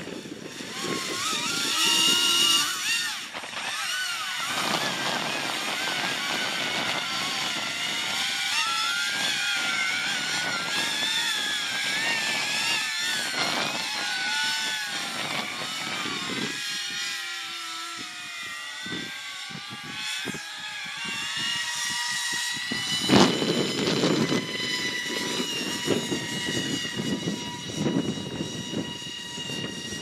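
Electric ducted fans of a Flex Innovations FV-31 Cypher radio-controlled VTOL jet whining in flight. The pitch wavers up and down with throttle, then settles into a steady whine after a sharp bump about two-thirds of the way in. Gusty wind buffets the microphone underneath.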